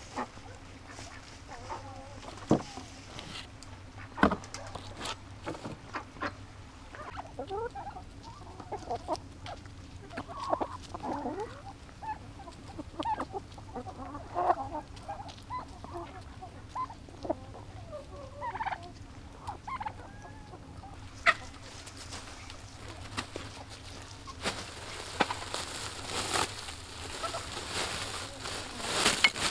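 Domestic hens clucking, a scattered run of short calls. Near the end, rustling as a woven plastic sack is opened and handled.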